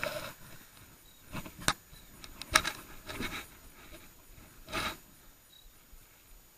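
Handling of a fishing rod and spinning reel: a few scattered sharp clicks and knocks, the loudest about two and a half seconds in, with brief rustles between them.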